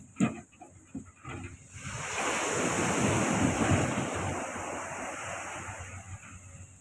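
A sea wave breaking and washing in, its hiss swelling over about a second and then slowly fading away.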